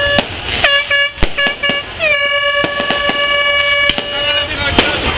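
A horn sounding one steady note: a held blast, then several short toots, then a long blast of about two seconds. New Year fireworks pop and crackle throughout.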